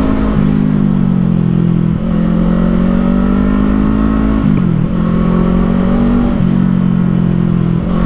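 Kawasaki Eliminator 450's parallel-twin engine running under way at about 60 km/h, heard from the rider's seat. Its note rises slowly and dips briefly a few times.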